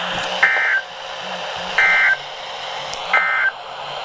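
NOAA Weather Radio SAME end-of-message data signal: three short, identical bursts of digital data screech, about 1.3 seconds apart, over steady radio static. It marks the end of the weekly test broadcast.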